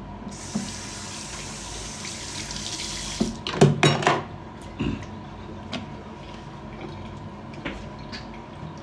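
Bathroom tap running into a washbasin for about three seconds, then shut off. A few short knocks follow, the loudest just after the water stops, then scattered faint clicks.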